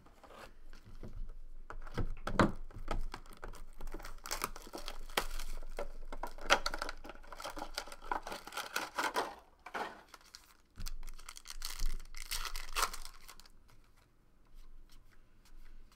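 Clear plastic shrink-wrap torn off a hobby box of trading cards and crinkled, with the card packs rustling as they are handled. The sound is an irregular run of rips and crackles with sharp clicks, easing off briefly twice.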